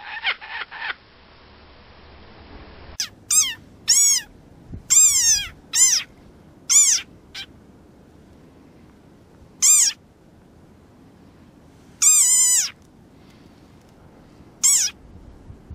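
A small animal making high, squeaky calls, each sweeping down in pitch, in irregular bursts of one to several from about three seconds in. In the first second a rapid run of honking calls ends.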